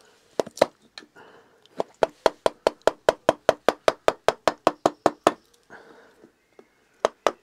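A maul tapping a carving gouge to hollow out a wooden kuksa. It starts with a few knocks, then a steady run of sharp knocks at about five a second. After a pause of over a second, the knocking starts again near the end.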